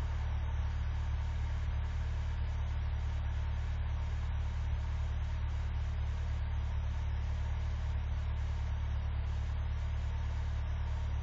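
Vehicle engine idling steadily, warming up after a hard cold start in sub-zero cold.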